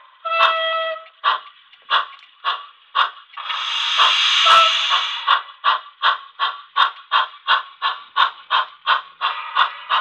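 Model steam locomotive's DCC sound decoder playing exhaust chuffs through its small speaker, the chuffs speeding up from about two a second to about five a second as the engine gains speed. A short whistle-like toot comes near the start, and a long hiss of steam breaks the chuffing about three and a half seconds in.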